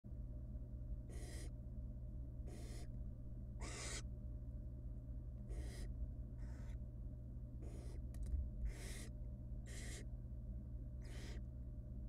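Barn owl nestlings giving hissing, rasping begging calls about once a second while being fed, over a steady low hum.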